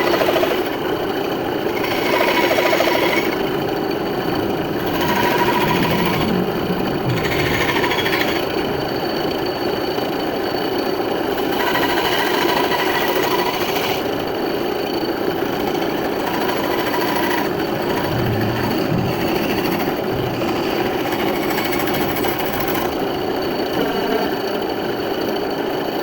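Power saw with a fast reciprocating blade, such as a scroll saw or jigsaw, running steadily while cutting a wood pattern. Its sound brightens and dulls every few seconds as the cut goes on.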